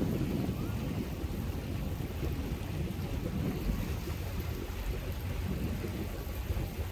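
Low, steady rumble of wind buffeting the microphone and water rushing past the hull of a moving boat.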